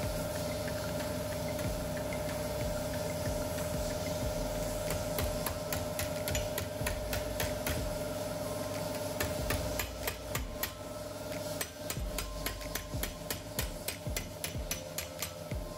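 Hand hammer striking sheet steel clamped in a bench vice, folding it over the vice jaws: a run of sharp metal blows, few at first and then coming quickly and often in the second half.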